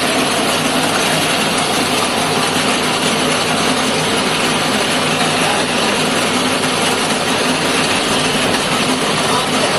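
Areca nut peeling machine running: a loud, steady mechanical din with a low hum under it.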